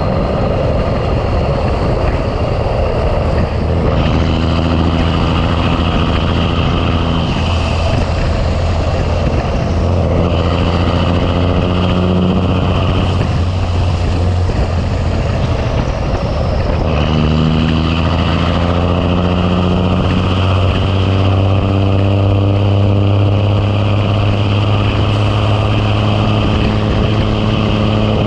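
Big Cam Cummins inline-six diesel in a 1986 Ford LT9000 working under a heavy load, pulling up through the gears. The engine note climbs, drops away at gear changes about 7, 12 and 16 seconds in, then climbs again and holds steady near the end.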